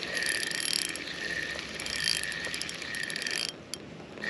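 Spinning fishing reel being cranked steadily, its gears whirring with an even pulse from each turn of the handle, as a heavy hooked fish is reeled in. The whirring stops suddenly about three and a half seconds in, and a few clicks follow.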